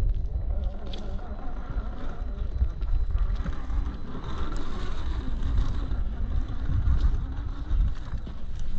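Gmade GS02F Buffalo RC crawler driving, its small electric motor and gears whining and rising and falling in pitch with the throttle, with scattered clicks. A heavy low rumble runs underneath.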